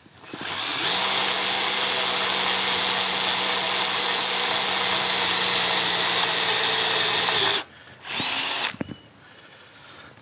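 Electric drill boring out a broken steel stud in a cast-iron tractor final-drive housing. It spins up, runs steadily under load for about seven seconds, stops sharply, then gives one short burst.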